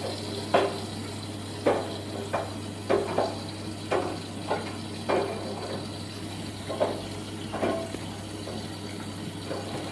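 Washing machine running through its cycle: a steady low hum with water sloshing, and irregular knocks from the drum, about nine in all.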